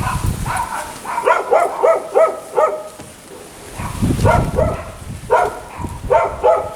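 A dog barking in several quick runs of short barks, about three a second, with gusts of wind rumbling on the microphone near the start and again about four seconds in.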